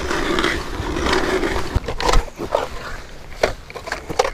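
Hand-cranked ice auger boring into pond ice: a steady grinding scrape with a low hum, turning after about two seconds into uneven crunching and clicking of ice.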